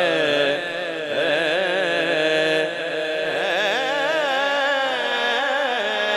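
A man singing a naat unaccompanied through a microphone and PA system, holding long ornamented notes whose pitch wavers and slides in a melismatic line.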